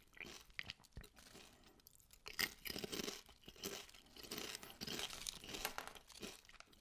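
Faint, irregular crackling and rustling of ridged potato chips being sifted through in an open hand, one chip picked out near the end.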